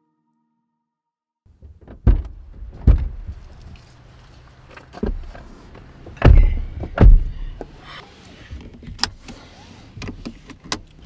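Two people getting into a car after a second and a half of silence: a series of thumps from the doors and seats, the loudest two close together around six to seven seconds in as the doors shut. Sharp clicks near the end as seatbelts are buckled.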